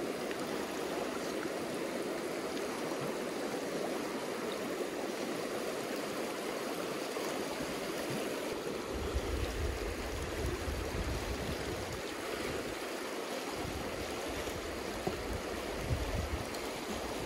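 Fast-moving creek rushing over rocks and boulders: a steady hiss of riffles and whitewater. In the second half a low rumble comes and goes beneath it.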